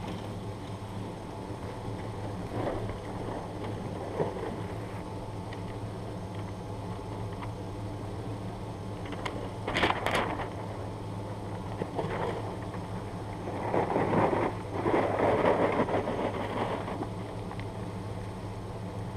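A vehicle engine idling with a steady low hum, under footsteps and rustling in dry leaves and grass. About ten seconds in there is a sharp stomp. Then for about three seconds water splashes from a bottle onto the smouldering target where the laptop battery fire burned.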